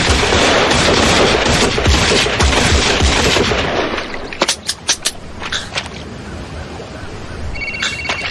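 Several guns firing together in a long, dense volley that runs for about four seconds. A few last separate shots follow, then the firing stops.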